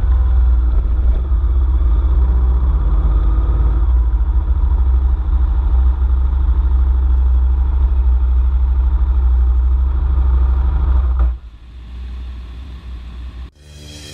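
Adventure motorcycle running under way, a steady engine sound with a heavy low rumble, which drops away suddenly about eleven seconds in. Rock music with guitar starts just before the end.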